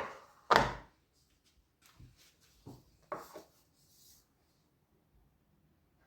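A few sharp knocks and clatters of baking utensils, the second about half a second in the loudest, then lighter taps around two to three seconds and a brief rustle just before four seconds.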